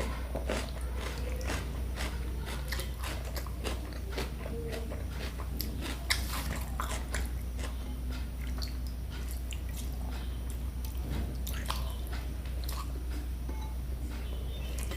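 A person chewing and crunching food close to the microphone, with many small sharp crunches and mouth clicks scattered throughout.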